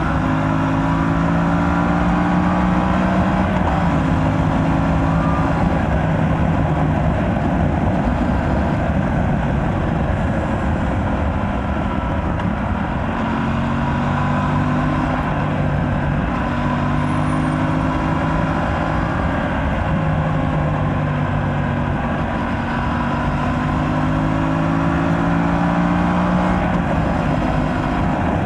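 Aprilia RS 457's parallel-twin engine through its stock exhaust under way, the engine note climbing steadily and then stepping down every few seconds as the rider works the throttle and shifts gears, with a steady rush of wind and road noise.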